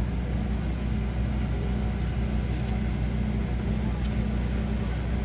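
A steady low mechanical hum over an even background noise, unchanging throughout.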